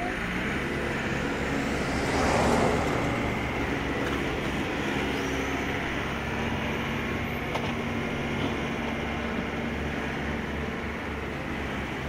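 Wheel loader engine running steadily as it works and drives, a low continuous drone, with a louder noisy swell about two seconds in.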